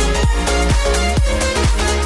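Electronic dance music with a steady kick-drum beat, about two beats a second, under sustained synth chords.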